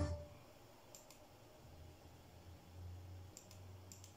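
Faint clicks of a computer mouse: a quick pair about a second in and three more near the end, over a low steady hum.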